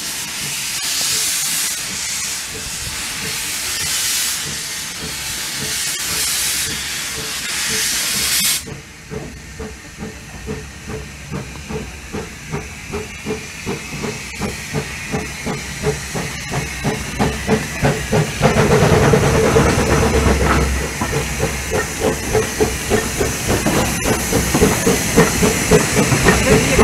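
Hunslet 0-4-2 narrow-gauge steam locomotive starting away: a loud hiss of steam from the open cylinder drain cocks cuts off suddenly about eight seconds in. Then exhaust chuffs come, slow at first and gradually quickening and louder as the engine and its carriages pass close by.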